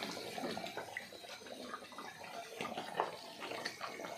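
Curry simmering and bubbling in pans on a gas stove, a steady faint watery hiss with small pops. There is a light knock about three seconds in.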